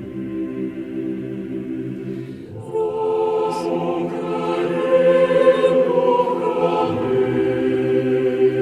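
A choir chanting slowly in long held notes. About three seconds in it moves up to a higher, louder phrase.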